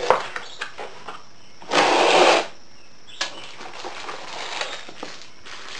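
Cardboard box and packaging being opened by hand: a few small clicks, a loud noisy scrape lasting under a second about two seconds in, then softer rustling of cardboard and packing.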